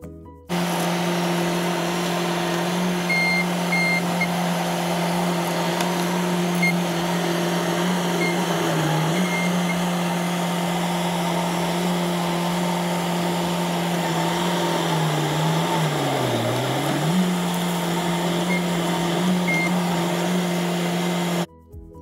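Bobcat S570 skid steer's diesel engine running steadily as the loader pushes a small tree over with its bucket. The engine pitch sags briefly about nine seconds in and dips deeper for a couple of seconds around sixteen seconds, lugging under the load, then recovers.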